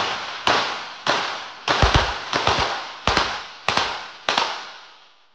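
Rapid-fire .22 pistol shots from more than one shooter in a 25 m rapid-fire pistol series. There are about ten sharp cracks, roughly half a second apart, some in close pairs, and each echoes and fades off the range walls. The shooting stops a little past four seconds in.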